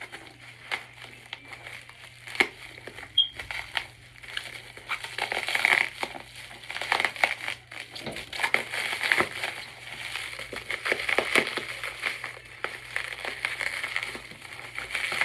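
Bubble wrap and plastic cling wrap being pulled off and crumpled by hand, a dense irregular crackling with sharper crinkles throughout.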